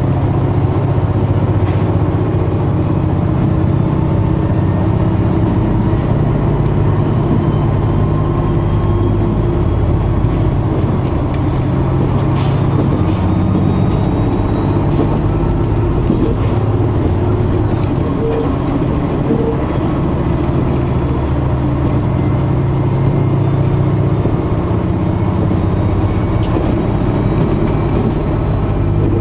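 Cabin running noise of a KiHa 261 series 1000 diesel railcar travelling at speed: a steady diesel engine drone over the rumble of the wheels on the rails.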